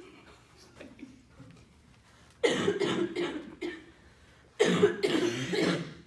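A person coughing close to the microphone in two loud bouts, each about a second and a half long and made of several short coughs.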